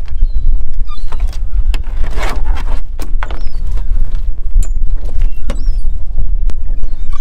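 Edible crabs being handled in and around a lobster pot: scattered clicks and knocks of crab shells and claws against the pot's mesh and the boat deck, over a steady, loud low rumble.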